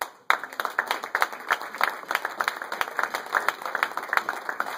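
Audience applauding, breaking out just after the start, with claps from someone close by standing out.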